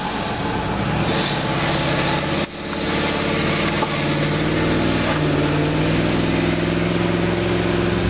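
Vehicle engines running on a snow-covered street, a steady low drone with a short break about two and a half seconds in.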